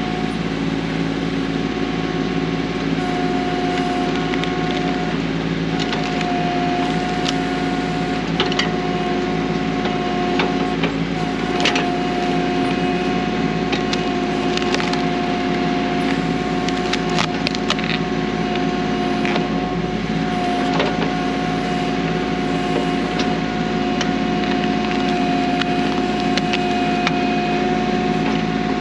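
Kubota B2650 tractor's diesel engine running steadily while its BH77 backhoe works, with scattered sharp cracks and snaps of wood as stump roots are torn out.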